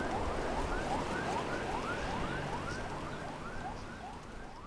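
Rapid series of short, rising, siren-like chirps from calling wild animals, about three a second in two overlapping series, over steady outdoor ambience. The whole sound fades out near the end.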